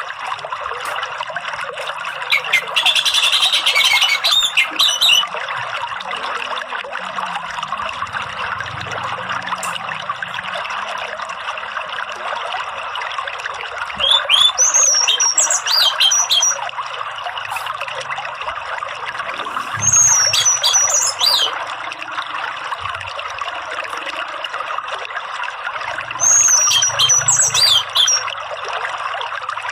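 Orange-headed thrush singing short bursts of quick sweeping whistles and chatter, four times, over a steady rush of running water.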